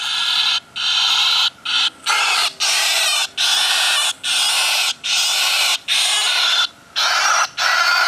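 Recorded starling calls played loud through the small onboard speaker of a bird-deterrent model plane: a run of about a dozen harsh screeches, each half a second to a second long, with short breaks between them.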